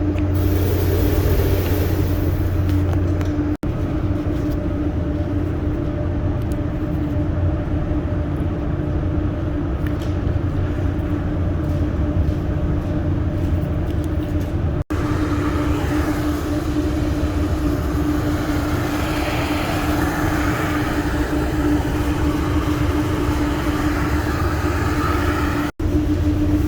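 Hot water jetter running steadily, a constant machine hum with a steady mid tone; the sound drops out for an instant three times.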